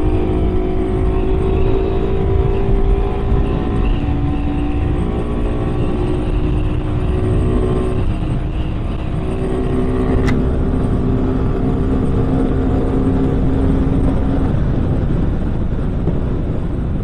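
Motorcycle engine running at cruising speed under heavy wind and road rumble, picked up by a mic clipped inside the rider's helmet. The engine note eases down slowly and changes about eight seconds in and again near the end, with one sharp click about ten seconds in.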